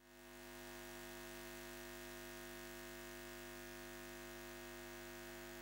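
Faint, steady electronic hum of several held tones, fading in over about the first second and then holding unchanged, like the buzz of a neon sign.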